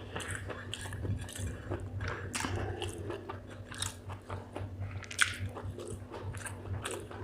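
Close-miked chewing and crunching of spicy chicken gizzard with rice: a run of wet crackles and ticks, with one sharper click about five seconds in, over a low steady hum.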